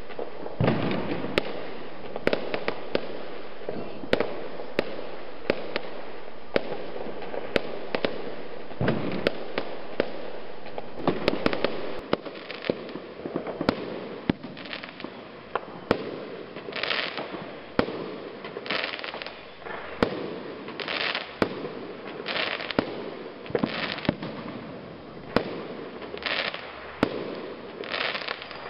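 Aerial fireworks bursting in a display, a long run of sharp bangs over a steady background noise. About twelve seconds in the background drops, and after that short hissing bursts come roughly once a second between the bangs.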